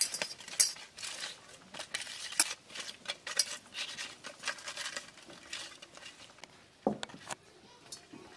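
Hands rubbing salt and turmeric into pieces of raw rohu fish head in a steel bowl: quick wet rubbing and scraping against the metal, about two strokes a second, with light clinks. The strokes thin out about five seconds in, and two duller knocks follow near the end.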